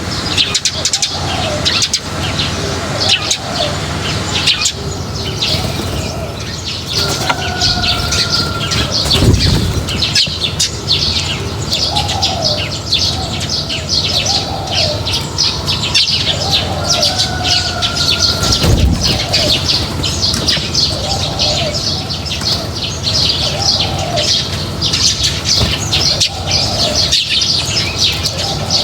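A flock of small birds chirping and twittering densely and without pause, with shorter, lower call notes repeating among them. Two brief low thumps stand out, about nine seconds in and again about nineteen seconds in.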